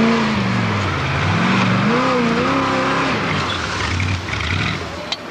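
Formula Offroad car's engine revving hard as it climbs a steep dirt hill, its pitch dropping, climbing and wavering as the throttle is worked, over the rough noise of spinning tyres throwing gravel. A sharp click sounds near the end.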